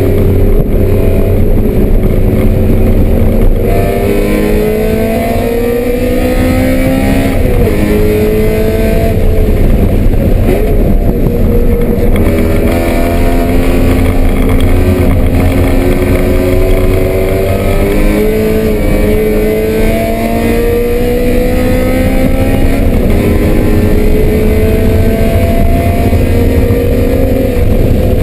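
Race car engine at full throttle on track, its pitch climbing steadily and stepping back down at each gear change, again and again, over a heavy low rumble of road and wind noise.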